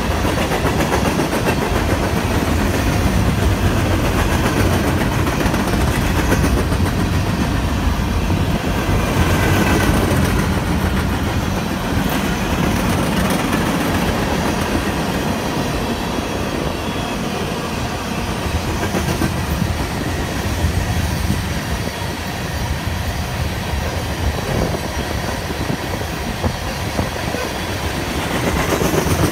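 Manifest freight train's tank cars rolling past: a steady rumble of steel wheels on the rails, with the rattle of the cars.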